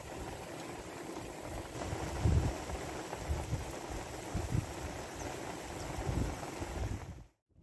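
Wind buffeting the microphone outdoors over a low, steady rumble, with irregular low gusts. The sound cuts out briefly near the end.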